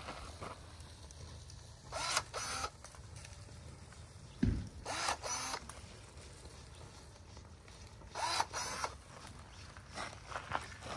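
Battery-powered DeWalt pruning shears cutting desert willow branches: a short motor whir as the blade closes, about four times, a couple of seconds apart.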